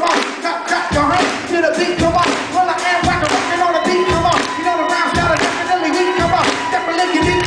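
Live hip-hop music played loud: a repeating melodic pattern, joined about a second in by a deep bass beat that hits roughly once a second.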